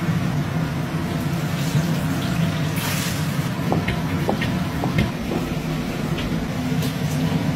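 Wok cooking: rice frying in pork lard over a gas wok burner, a steady rushing noise with a low hum, while a metal ladle clinks against the wok several times.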